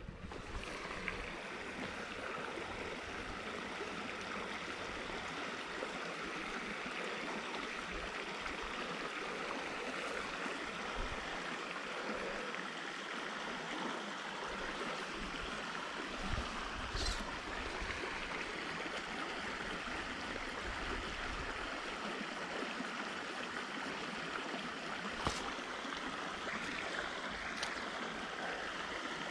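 Small shallow stream running steadily, a continuous flowing-water sound, with three brief clicks in the second half.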